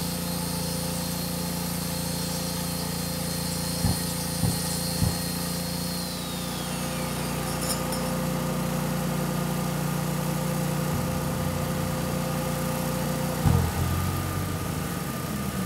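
Dustless concrete grinder with a vacuum shroud running over the concrete pool collar, grinding out surface imperfections, over a steady low hum. Two held motor whines wind down, one about six seconds in and the other near the end, and there are three short knocks about four to five seconds in.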